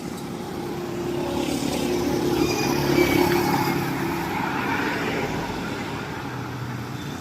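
Street traffic with a motor vehicle going by: its engine hum and tyre noise rise to a peak after about three seconds, then fade.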